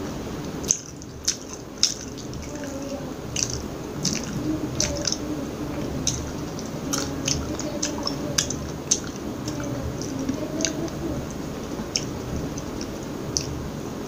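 Close-miked mouth chewing food, with many short wet clicks and smacks scattered through it, a few louder ones about a second in.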